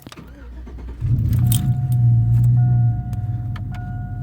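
A pickup truck's engine is started with the key about a second in, runs loudest for about two seconds, then settles into a steady idle. A steady electronic warning tone sounds from the dashboard over it.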